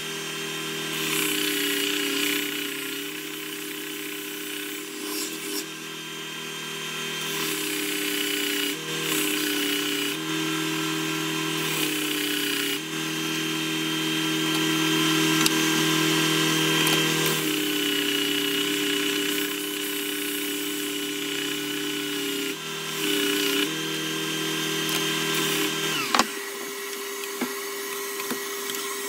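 Clarke bench belt-and-disc sander running, sanding a wooden box, with a steady hum whose pitch shifts several times as the work is pressed on and lifted off. About 26 seconds in there is a click and the sander's hum drops away while a dust extractor on its hose keeps running.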